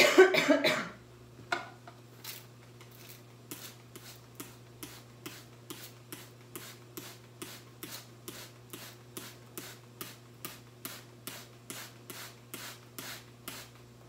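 Hand-pumped trigger spray bottle misting water in quick, even squirts, about two or three a second, each a short hiss with a small click of the trigger, to give a parrot a bath. A brief loud rasping sound comes first.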